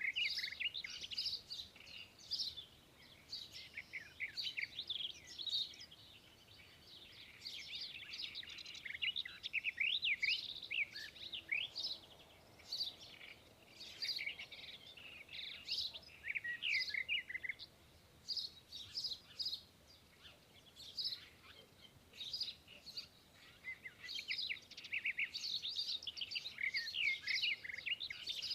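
Small birds chirping and twittering, a dense chorus of short, high chirps and quick rising and falling notes with barely a pause.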